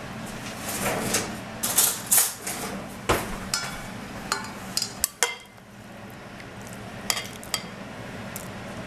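Glass and ceramic bowls clinking and knocking as tzatziki is served: scattered sharp clinks, several close together about two seconds in and more later on.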